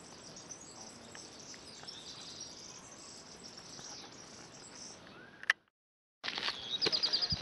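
Countryside ambience: faint bird chirps and insects over a light background hiss. About five and a half seconds in there is a click and half a second of dead silence at an edit, followed by louder, quick, repeated bird chirps.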